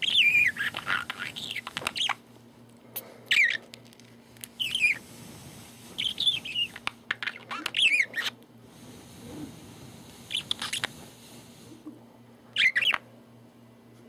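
A budgerigar chattering at its reflection in a mirror: about six short spells of high, down-swooping chirps mixed with clicks, with pauses between them.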